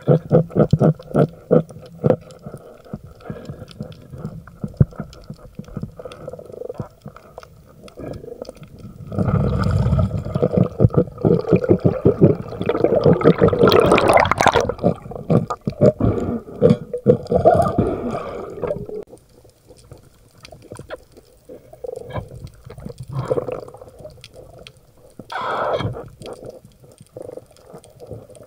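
Water sloshing and bubbling around the camera during spearfishing, with rapid clicks at the start and a loud rushing, crackling stretch in the middle before it settles to scattered small knocks.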